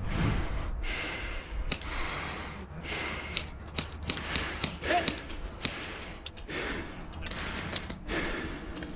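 A man breathing hard and gasping, out of breath after a sprint, with scattered small clicks and knocks.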